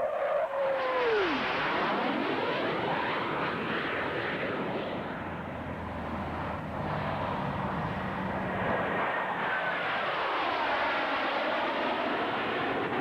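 Aerobatic airplane flying low past the crowd, its engine pitch dropping sharply as it goes by about a second in. The noise stays loud as it keeps flying, with another falling sweep around ten seconds in as it passes again.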